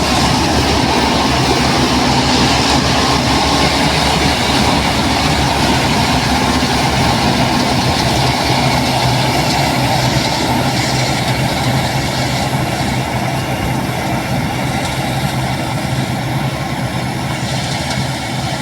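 Vels combine harvester running steadily, its engine and machinery making a loud, even noise with a dense fast rattle underneath.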